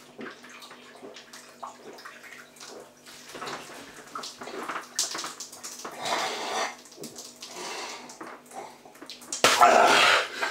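A man chugging beer from a can: irregular gulping and the slosh and splatter of beer spilling out of his mouth and down his shirt, with a much louder burst of sound about nine and a half seconds in as he comes off the can.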